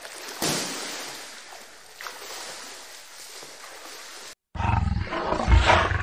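A hippopotamus's long breathy exhalation that fades away, then, after a short break, a crocodile's deep rumbling growl.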